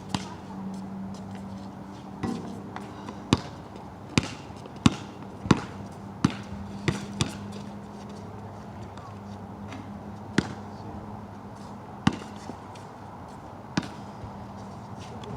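Basketball bouncing on a wet court, about ten sharp, unevenly spaced bounces, bunched together in the first half and spread out later.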